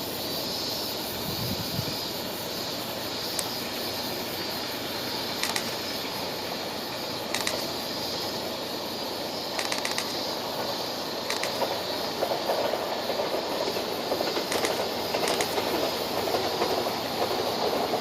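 A train running past: a steady rush and rumble with sharp wheel clicks over the rail joints every second or two, growing a little louder in the second half.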